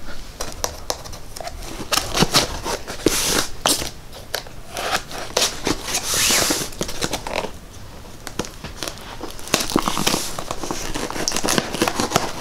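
Packing tape being picked at and peeled off a cardboard shipping box by hand: scratchy clicks and crinkling, with a few longer tearing rips as strips of tape come away.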